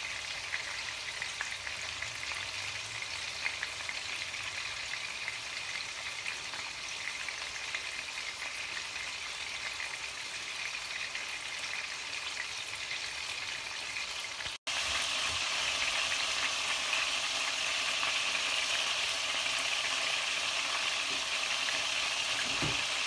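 Beef steak sizzling in a frying pan, a steady fry. It breaks off for an instant about two-thirds through and comes back louder and brighter.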